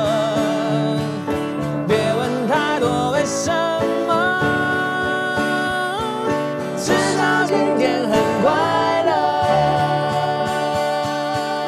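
A group of men singing a song in chorus, with a single voice taking a line on its own partway through, to a strummed acoustic guitar. The sung notes are long and held, some with vibrato.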